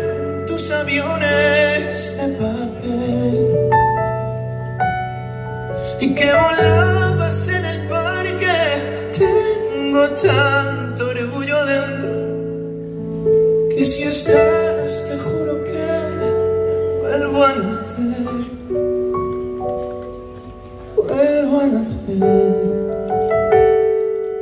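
A male singer performing a song live with electric keyboard accompaniment: long held keyboard chords under a sung melody, with short pauses between the vocal phrases.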